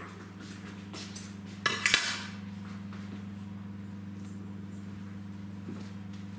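Small hard objects being handled: a few clicks about a second in, then a short burst of clinking and rattling about two seconds in. Underneath runs a steady low electrical hum.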